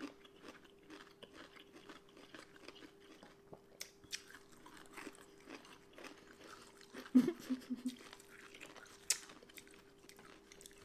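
Crunchy chewing of pickled sushi ginger slices: many short wet crunches at an irregular pace, with a few louder bites. About seven seconds in, one of the eaters gives a short 'mm' hum.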